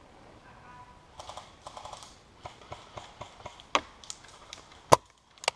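Scattered sharp clicks and ticks of an airsoft exchange, from airsoft guns firing and BBs striking around. Two louder cracks come near four and five seconds in, the second the loudest.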